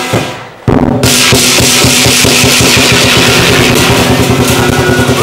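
Lion dance percussion: a big drum beaten fast and loud with clashing cymbals. After a short lull at the start, the full beat comes back in under a second in.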